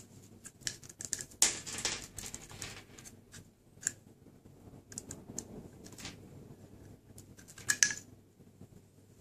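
Small hard-plastic clicks and scrapes of Apple EarPods being pulled off their white plastic cable-wrap holder: an irregular run of light clicks, with a longer scrape about a second and a half in and a sharper cluster of clicks near the end.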